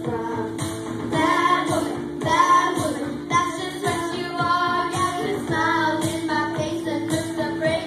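Several young girls singing together into handheld karaoke microphones over a backing track with a steady beat.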